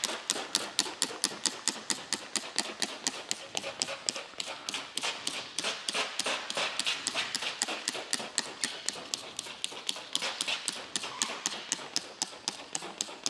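Hand trigger spray bottle squirted rapidly over and over, about four to five hissing sprays a second, misting a truck hood with slip solution (warm soapy water).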